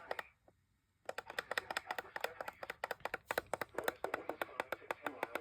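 Rapid, even clicking at about nine clicks a second, starting about a second in after a short quiet gap.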